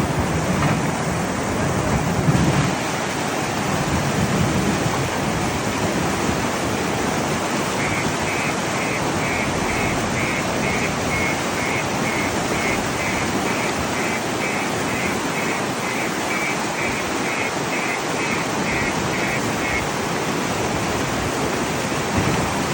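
Steady rushing noise of floodwater running over the road. In the middle stretch a faint, high beep repeats about twice a second.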